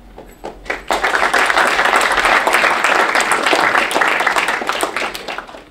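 Audience applauding: a few scattered claps, then full, dense applause from about a second in, dying away near the end.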